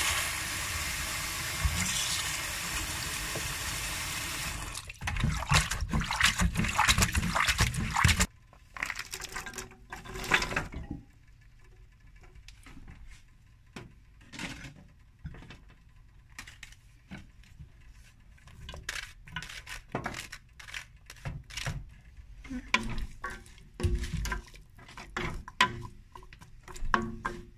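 Tap water running onto frozen cut green beans in a plastic colander while a hand rinses them; the water stops about five seconds in. Then there are a few seconds of loud rattling and splashing as the wet beans are shaken in the colander. After that come quieter scattered clicks, knocks and scrapes as the beans go into a steel pot and are stirred with a spatula.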